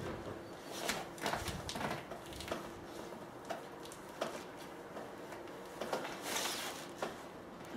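Scattered soft taps and rustles from a person moving on a wooden deck while pushing up from lying face down, with a short breathy rush of noise a little past six seconds in.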